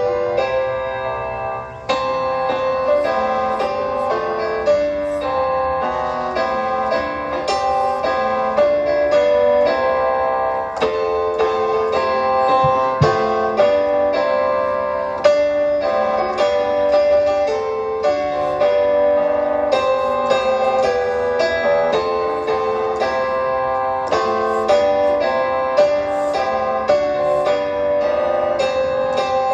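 Piano playing the accompaniment to a school song, a steady flow of notes and chords.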